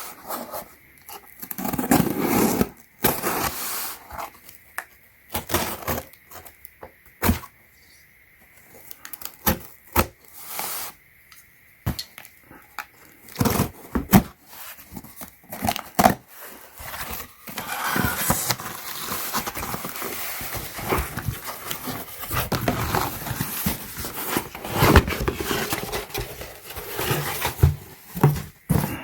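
Product packaging being opened and handled by hand: scattered clicks and scrapes, then steadier crinkling and rustling from a little past the halfway point.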